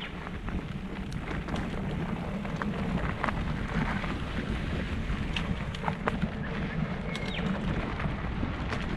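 Wind rumbling steadily on an action camera's microphone while moving quickly along a dirt trail, with scattered small clicks and rattles from the ride over the ground.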